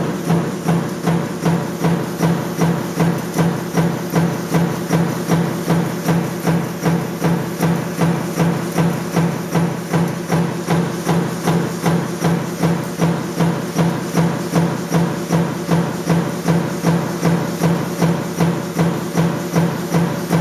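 Metal-forming machine running continuously, with an even clack about twice a second over a steady low hum.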